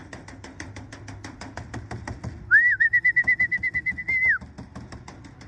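A pigeon fancier's call to bring racing pigeons down to the loft: a fast, even run of sharp clicks, then a trilling whistle held at one pitch for about two seconds that rises at its start and drops off at its end.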